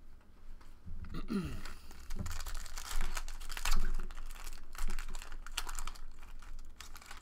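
A foil trading-card pack being torn open, its wrapper crinkling and crackling from about a second in.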